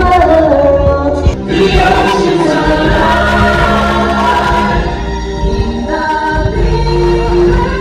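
A song from a live stage musical: a chorus of voices singing over instrumental backing.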